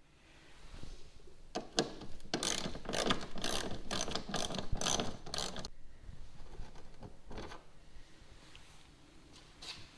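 Socket ratchet clicking in quick runs as hex screws are backed out of the wheel-well trim, busiest for about four seconds from a second and a half in, then a few scattered clicks.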